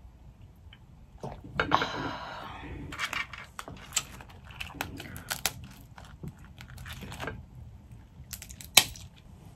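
Close-up eating of boiled crawfish: wet sucking and chewing, with sharp clicks and cracks of crawfish shells being broken apart by hand. The loudest crack comes near the end.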